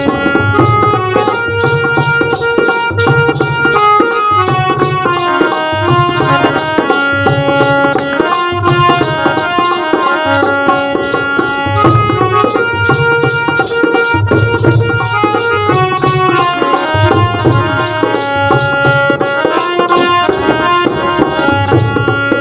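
Instrumental interlude of a Hindi Christian devotional song: a melody instrument plays a line of held, stepping notes over hand drums and a shaker keeping a steady rhythm.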